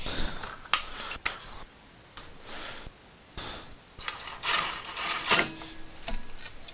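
Cordless drill driving the small rotor retaining screw into a brake rotor's hub face, running in short bursts from about four seconds in, after a few light metal clicks of the screw and bit being set.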